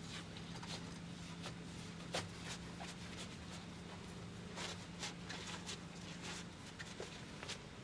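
Scattered light clicks and knocks, the sharpest about two seconds in, over a faint steady hum that stops about six and a half seconds in.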